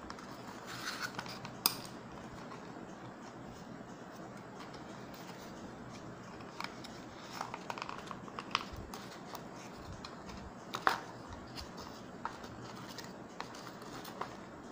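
Small clicks, scrapes and rustles of hands working cardboard packaging and untwisting wire twist-ties, over a steady faint hiss, with two sharper clicks about two seconds in and about eleven seconds in.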